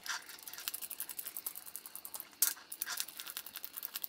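Small screwdriver turning out the screws of the micro SD card cover on a plastic camera housing: a quiet run of rapid light ticks and scrapes, with a couple of sharper clicks about two and a half and three seconds in.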